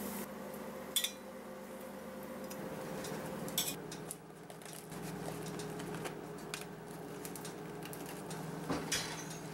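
Metal kitchen tongs clinking against a metal serving tray a few times, over a low steady hum.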